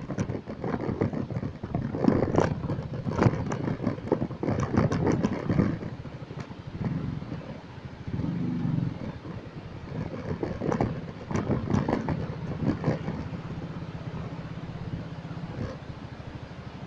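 Motorcycle engine running while riding over a rough, rocky dirt track, with clusters of clattering knocks and jolts from the bumps and a brief rise in engine pitch about eight seconds in.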